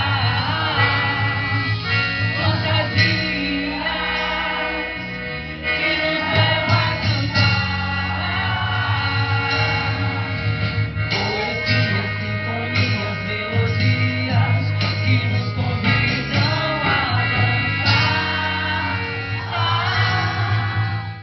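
Background song with a male singing voice over guitar and a steady bass line.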